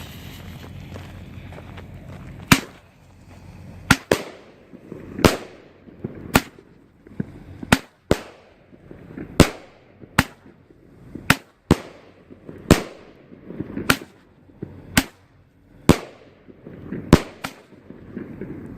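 Silver strobe fireworks going off: a steady hiss, then sharp pops at an uneven pace of about one a second, each dying away quickly.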